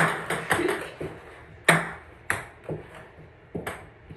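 Ping pong balls bouncing: about ten sharp, hollow clicks at irregular spacing.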